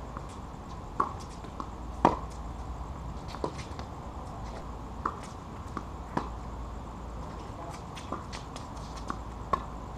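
A tennis rally: the ball is struck by rackets and bounces on the hard court, making a sharp pop every second or so, with the loudest hit about two seconds in. A low steady hum runs underneath.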